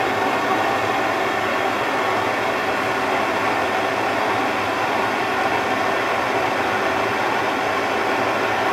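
Gas torch flame burning steadily as it heats a copper pipe joint for sweat soldering, bringing the joint up to the heat at which the solder gets drawn in.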